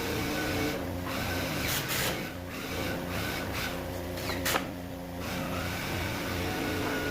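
Electric power tool motor running steadily with a faint whine, with a few sharp knocks, the loudest about four and a half seconds in.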